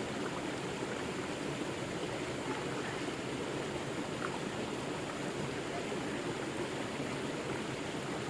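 River water flowing steadily, a constant rushing babble.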